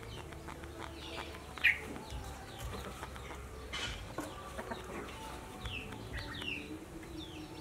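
Chickens calling: many short, falling calls, with one louder call about a second and a half in, over a low steady hum.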